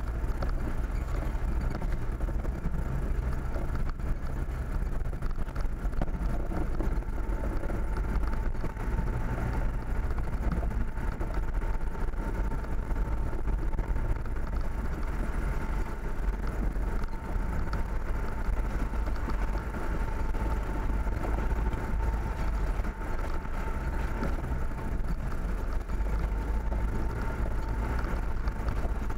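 A vehicle driving along a rough dirt track: a steady low engine and road rumble with tyre noise and a faint steady whine.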